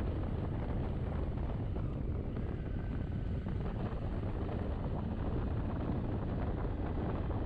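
Steady wind buffeting the microphone while riding on a motorcycle, heard as a constant low rumble.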